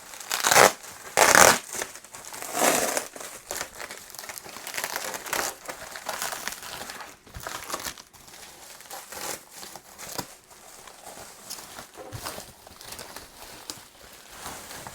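Bubble wrap and packing material crinkling and rustling as they are pulled and handled. There are several loud bursts of crinkling in the first three seconds, then quieter rustling.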